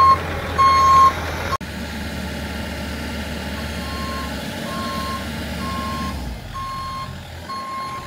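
Bobcat E42 mini excavator's travel alarm beeping, about one beep a second, over the low running of its diesel engine. A sudden break comes about a second and a half in, after which the beeps are fainter. The engine sound drops away near the end.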